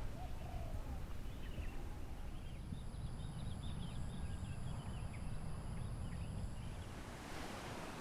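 Seaside nature ambience: a low steady rumble of surf and wind, with a flurry of quick, high bird chirps from about two seconds in until near the end.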